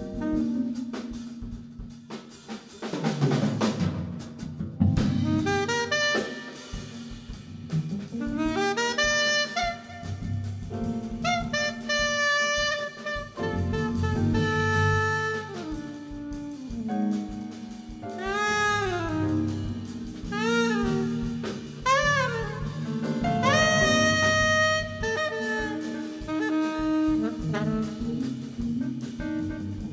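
Live jazz: a soprano saxophone plays a melody with bending, sliding notes over electric bass, drum kit and keyboards.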